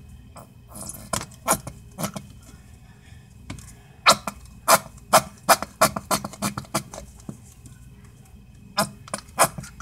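Plastic squeeze bottle of craft paint being squeezed: a dozen or so short, sharp sputters in irregular clusters as air and a little paint spurt from the nozzle. The bottle seems full but barely any paint comes out.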